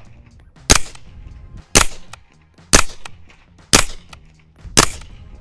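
Suppressed Aero Precision EPC-9 9mm carbine with a Dead Air Mojave 9 firing 147-grain subsonic rounds: five shots about a second apart, each a short sharp report with no supersonic crack. The bolt cycling and the bullets striking the berm are louder than the muzzle report.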